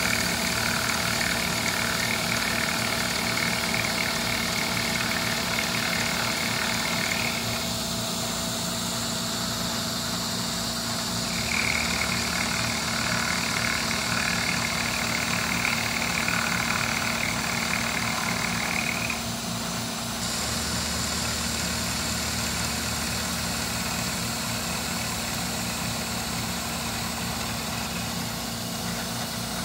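CNC Bridgeport milling machine's end mill cutting a metal soft jaw, with the spindle turning at a third of its intended speed, which gives chompy cutting noises. The cutting sound comes in two stretches, for about the first seven seconds and again from about eleven to nineteen seconds. Underneath, the mill runs with a steady hum, which is all that is left between and after the cuts.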